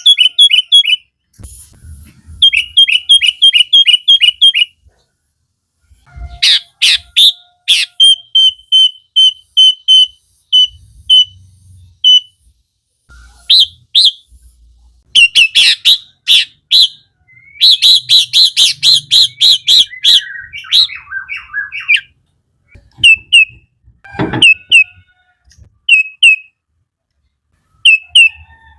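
Sooty-headed bulbul singing: bursts of fast, repeated sharp chirps and whistled notes, broken by short pauses.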